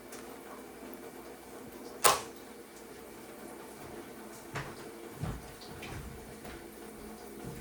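A single sharp knock about two seconds in, then a few lighter clunks, over a steady low hum.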